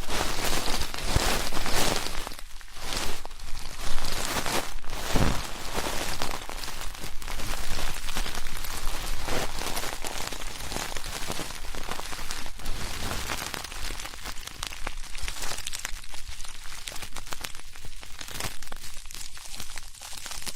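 Close-miked ear-cleaning ASMR: steady, dense scratching and crackling of an ear-cleaning tool rubbing and scraping inside the microphone's ear, a little louder in the first few seconds.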